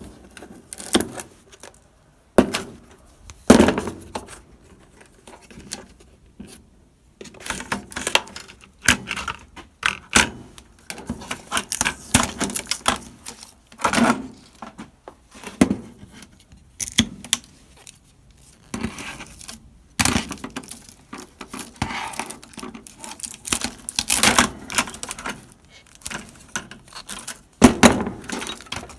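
Irregular sharp clicks, snaps and light metallic clatter from wire cutters snipping through the wiring of a plasma TV and its parts being handled, some of them loud.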